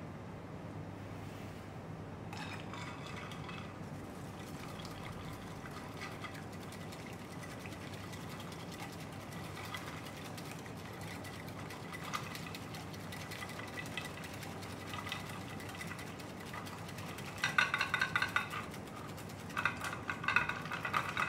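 Wire whisk whipping cream in a glass bowl set over ice. Near the end come two bouts of fast, rhythmic clicking as the tines strike the glass. Before that there is little more than a low steady hum.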